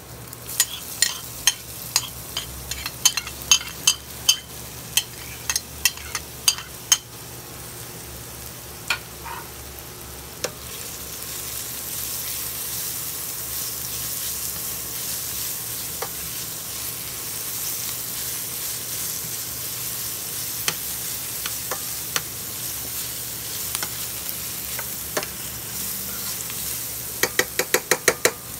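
Shredded carrot and chopped onion sizzling in coconut oil in a stainless steel pan, stirred with a metal spoon. A run of sharp spoon clicks comes first, then a steady sizzle that grows louder, and a quick burst of clicks near the end.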